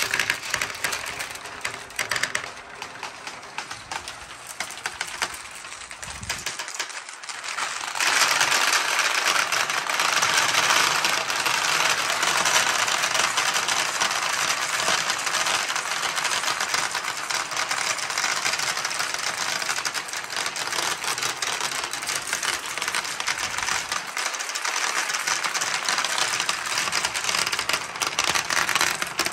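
Many glass marbles rolling and clattering down a clear plastic tube and a perforated-board ramp, a dense stream of clicks. The stream thickens and grows louder about eight seconds in.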